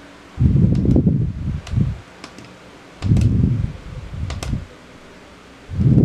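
Buttons on top of a plastic digital alarm clock being pressed while the clock is held: five dull thumps of handling, several with a sharp click.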